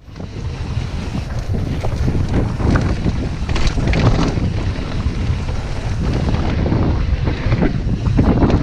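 Wind buffeting the microphone of an action camera over the rumble and irregular clatter of a mountain bike riding fast down a rough dirt trail, its tyres running over dirt and stones.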